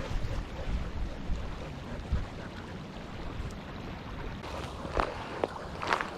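Wind buffeting the microphone, with a few short sharp clicks or knocks about five to six seconds in.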